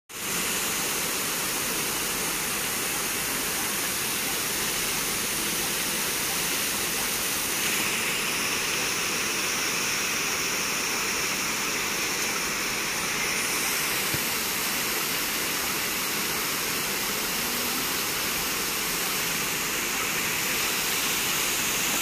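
Man-made waterfall cascading down a rock wall into a pool: a steady, unbroken rush of falling water.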